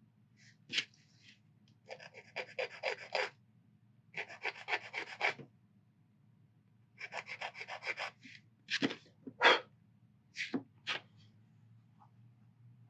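Quick back-and-forth rubbing strokes of a hand file or sanding stick on a small plastic model wagon part. They come in three bursts of about a second each at roughly eight strokes a second, followed by four single, louder strokes.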